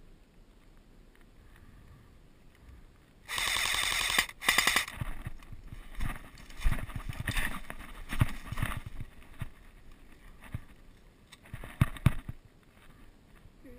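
An automatic airsoft rifle fires a rapid burst of about a second, starting a few seconds in, then a shorter burst just after. Scattered rustles and thumps of branches and brush follow as the wearer pushes through the undergrowth.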